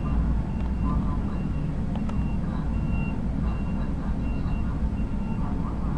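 A vehicle's reversing alarm beeping about twice a second over a steady low rumble of heavy diesel machinery, with one sharp knock about two seconds in.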